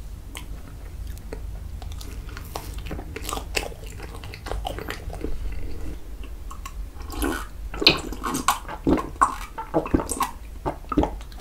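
Close-up chewing of a toasted, sticky marshmallow: soft wet mouth sounds that turn into a quick run of loud clicks and smacks in the second half.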